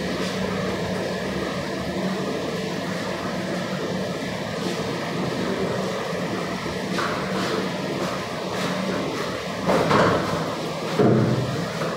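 Steady roar of lit gas stove burners under large cooking pots, with a constant low hum underneath. A few short knocks and clatters of kitchen utensils near the end.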